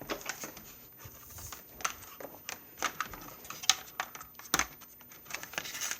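Irregular sharp clicks and light knocks of hard plastic parts being handled on an upright vacuum cleaner that is not yet switched on.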